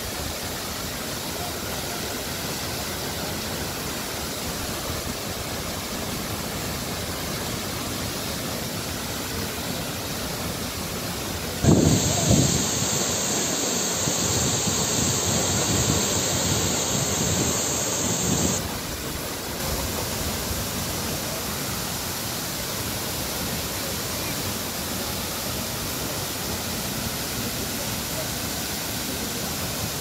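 Waterfall pouring into its plunge pool: a steady rush of falling water. For about six seconds in the middle, a louder, closer-sounding stretch of the falls cuts in, then the even rush resumes.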